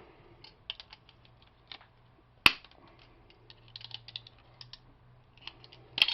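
Scattered light clicks and ticks of metal door-handle parts and hand tools being handled during disassembly, with one sharp click about two and a half seconds in.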